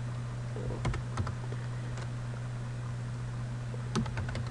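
Keys pressed on a computer keyboard while a login is typed in: a couple of separate keystrokes about a second in, then a quick run of several near the end. A steady low hum runs underneath.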